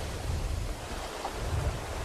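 Ocean surf: waves breaking and washing in a steady rush, with a low rumble that swells and eases.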